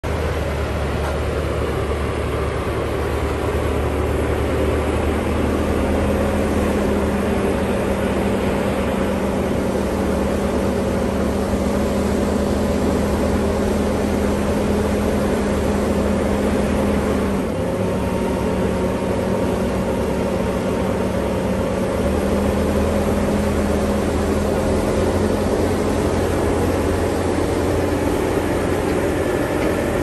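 Bobcat T740 compact track loader's diesel engine running steadily at a constant speed, with a brief dip in its note a little past halfway.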